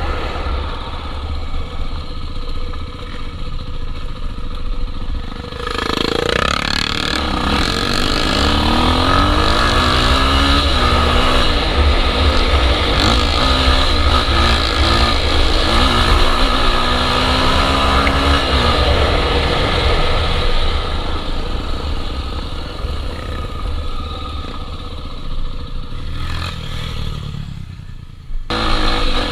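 Honda XR250 Tornado dirt bike's single-cylinder four-stroke engine under way, its note rising and falling repeatedly as the throttle opens and closes. It picks up strongly about six seconds in and falls off briefly near the end.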